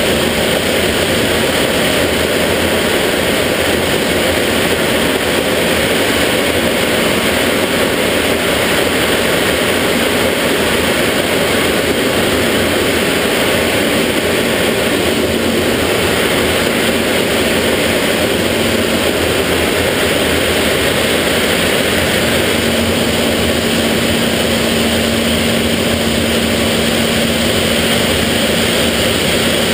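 Jet Provost's Rolls-Royce Viper turbojet and airflow heard inside the cockpit in flight: a steady loud rush with a faint hum in it that drops away for a few seconds past the middle and then returns.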